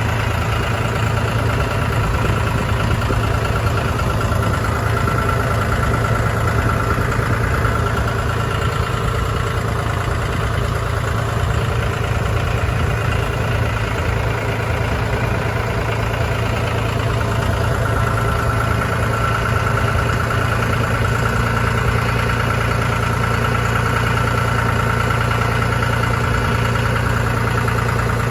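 John Deere 5045E tractor's diesel engine running steadily, with a steady whine on top that fades and returns partway through.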